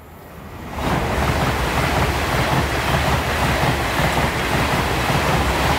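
A train passing the level crossing at speed. A rush of wheel and air noise swells in about a second in and holds steady, with a fast clatter of wheels on the track, and starts to fade at the very end.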